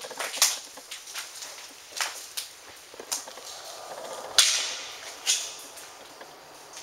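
Footsteps on a hard floor: about six sharp, irregular steps, the loudest about four and a half seconds in.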